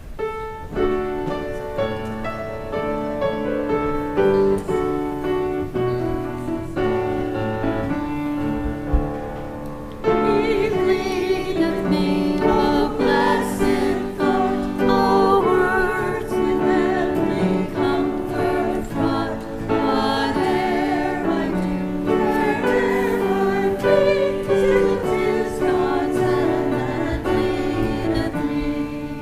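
Congregation singing a hymn with instrumental accompaniment. The music grows fuller and louder about ten seconds in as more voices come in.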